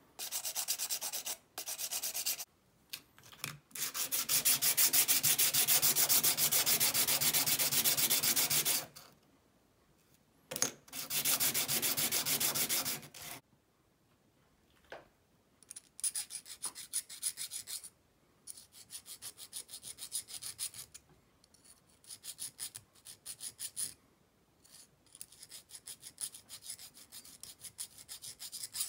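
Abrasive sanding sponge rubbed rapidly back and forth on the steel blade of an old hand-operated hair clipper, in several bursts, the longest about five seconds. In the second half, quieter short bursts of light scraping on the blade.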